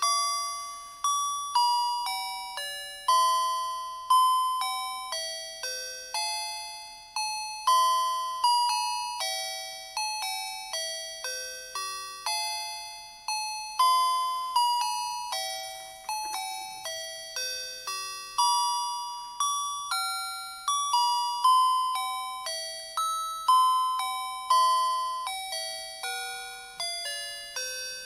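Electronic chiming melody of the kind played by a musical Christmas lights set: a carol tune picked out one note at a time, each note starting sharply and fading, a few notes a second.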